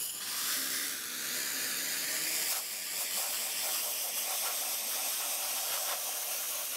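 Handheld sandblaster nozzle blasting abrasive grit at a rusty steel car subframe: a steady, unbroken hiss of compressed air and grit stripping rust, scale and grime off the metal.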